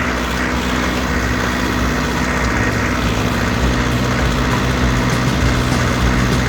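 Farm tractor engine running steadily at a constant pitch, loud and close, with no change in speed.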